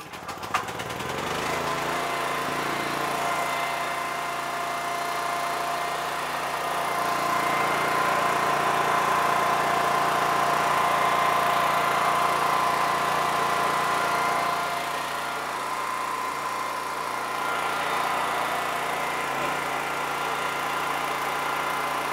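Small portable gasoline generator engine running steadily, a little louder in the middle. Near the end it is powering a 230-volt submersible well pump that is pumping water.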